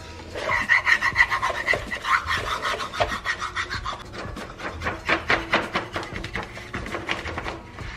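Plastic smoothing card scraped in quick repeated strokes over self-adhesive wallpaper, pressing the sheet flat onto the wall.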